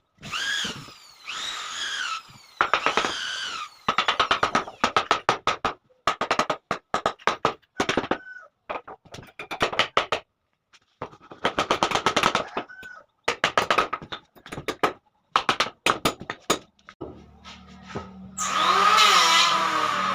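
Handheld power drill run in repeated short bursts, its motor pitch rising and falling with each trigger pull, some bursts carrying rapid clicking. Near the end a steadier, continuous sound takes over.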